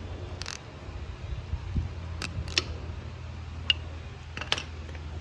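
About five sharp clicks and taps, spread across the few seconds, from hand tools and parts being handled on an engine, over a steady low hum.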